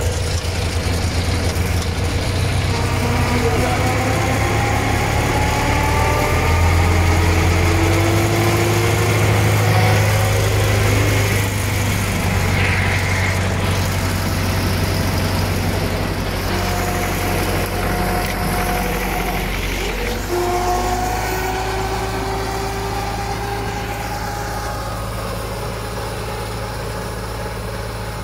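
Belarus MTS-50/52 tractor's diesel engine running steadily while mowing, with a thin whine that rises slowly in pitch twice. The engine sound grows gradually fainter over the second half.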